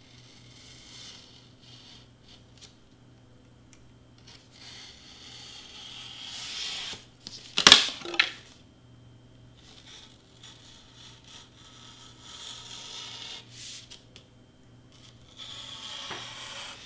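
Craft knife blade being drawn through foam board, a soft scratchy hiss in stretches as it cuts, with one sharp crack a little before halfway through.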